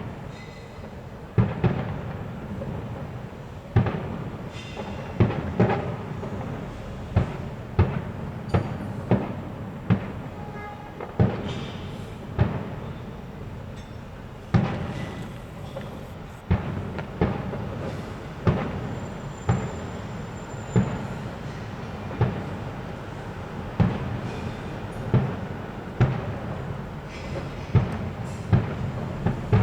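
Aerial fireworks shells bursting in an irregular run of loud bangs, about one every one to two seconds, each trailing off in a rolling, echoing rumble.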